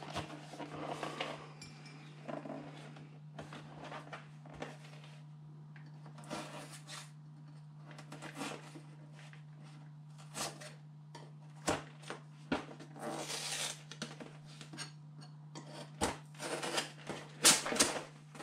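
Cardboard and plastic packaging of a trading-card collection box being handled and opened: rustling, scraping and tapping, with sharper clicks and scrapes in the last few seconds as a knife blade is worked into the box. A steady low hum runs underneath.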